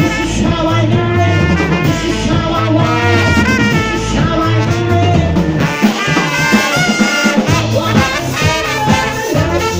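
Swing music played live: a woman singing with a trumpet over a bouncing bass and drum backing. About six seconds in the bass drops out for a short break, then comes back.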